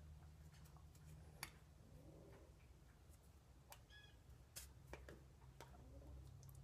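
Near silence: a steady low room hum with a scatter of faint, short clicks and taps.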